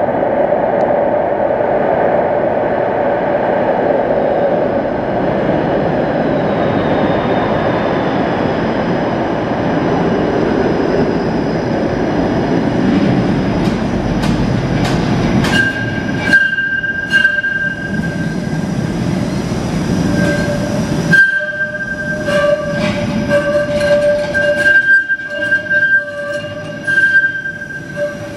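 Bombardier Flexity Outlook streetcar rumbling through the underground loop, then about halfway in its wheels start squealing in high, steady, on-and-off tones as it takes the tight curve into the platform, with clicks and knocks from the wheels on the rails.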